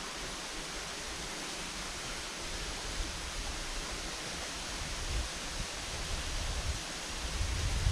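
Steady rush of a nearby waterfall or mountain stream. From about halfway in, low rumbles and bumps on the microphone come in and grow stronger near the end.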